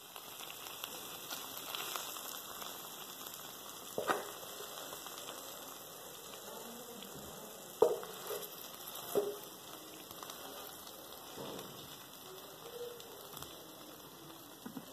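Barbecue-glazed pork ribs and sauce sizzling faintly in a hot nonstick frying pan, with a wooden spatula knocking against the pan three times as the ribs are scraped out onto a plate.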